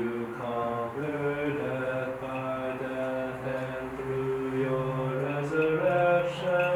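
Byzantine liturgical chant sung slowly, with long held notes that step from pitch to pitch.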